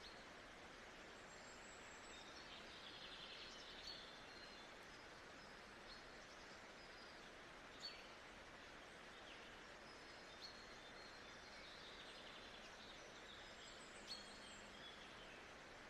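Faint nature-sound ambience: a steady soft hiss with small birds chirping and twittering now and then, a few short sharp chirps standing out above the rest.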